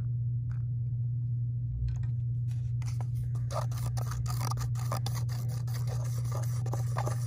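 A wooden popsicle stick stirring a thin acrylic paint-and-water wash in a thin plastic cup, scraping and clicking against the cup wall in a quick, uneven run from about two seconds in. A steady low hum lies underneath.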